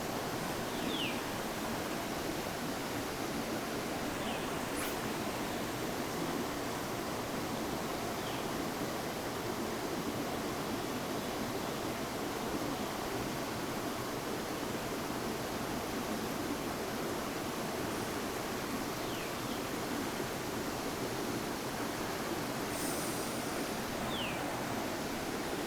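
River water running steadily over rocks, an even rushing sound, with a few faint short high chirps.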